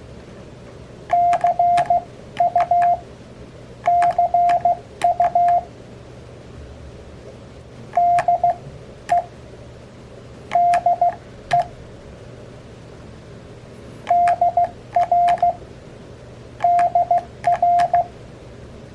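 Morse code (CW) sent from an Elecraft KX3 transceiver with a KXPD3 paddle: the radio's sidetone, a single steady tone, beeps out dots and dashes in six short groups of characters (CW abbreviations) a few seconds apart. A faint click marks the edges of each beep.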